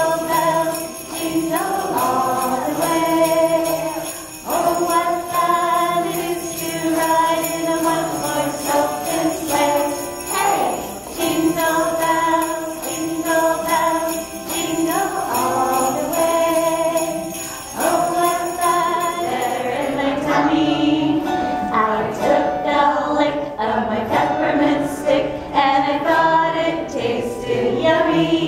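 Hand-held jingle bells shaken by a group of children along with a Christmas song; the jingling stops about two-thirds of the way through while the tune carries on.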